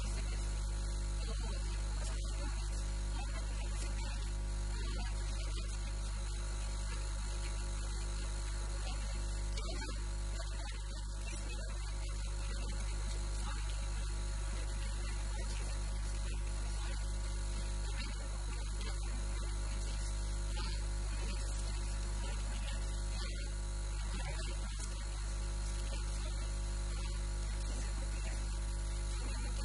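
Steady electrical mains hum with a buzz of many overtones, holding one level with only slight dips.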